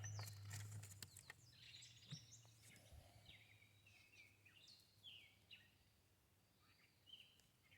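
Faint, quiet outdoor ambience with a bird giving a series of short, high chirps, each falling slightly in pitch, scattered from about two seconds in; a few light clicks come in the first second.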